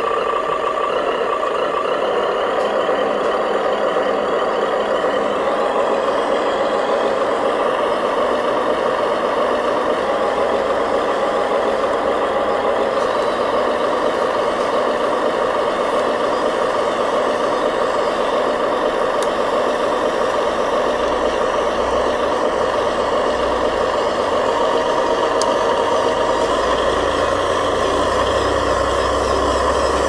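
Remote-control dump truck driving over a dirt track, making a steady mechanical drone, with a low rumble swelling in near the end.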